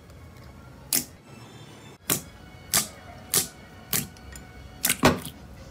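Thick white slime popping and clicking sharply as fingers squeeze and poke it. About seven separate pops come at irregular intervals, two in quick succession near the end.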